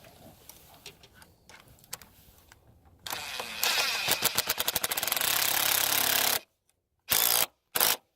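Power tool running a lock nut down onto a bolt: a loud, rapid clatter starts about three seconds in, settles into a steady run and cuts off suddenly, then two short bursts follow as the nut is snugged tight. Faint clicks come before it as the tool is set on the nut.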